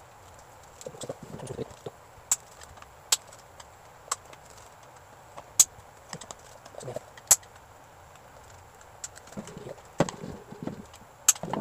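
Sharp plastic clicks and taps of a screwdriver prying at the end cap of a portable Bluetooth speaker, with duller knocks and rustles as the plastic casing is handled. The clicks come singly and irregularly, about seven louder ones.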